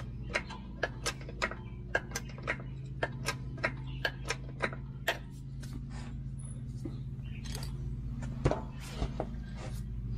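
Transmission jack being worked to raise a heavy-truck transmission into place: a run of quick clicks, about three a second, for the first five seconds or so, then a few scattered clicks, over a steady low hum.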